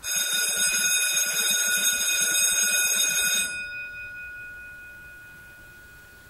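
An electric bell ringing continuously with a fast rattle for about three and a half seconds, then cut off, its tone dying away slowly.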